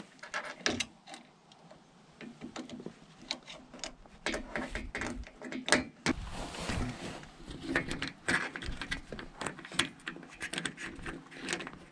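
Irregular small metallic clicks and rattles of a screw, washer and nut being handled and fitted by hand on a solar panel's frame and its metal mounting bracket.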